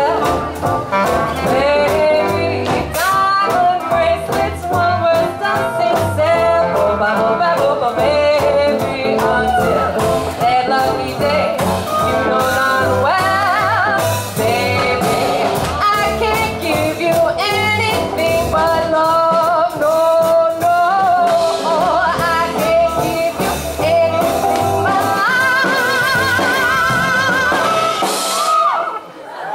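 Live swing jazz band playing, a clarinet carrying melody lines over bass and rhythm section. The bass drops away near the end and the tune closes on a long, wavering held note.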